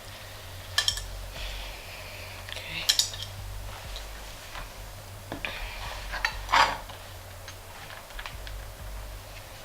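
Kitchen handling sounds: a few sharp knocks and clinks of utensils and dishes on a counter, loudest about 1, 3 and 6.5 seconds in, with smaller clicks between.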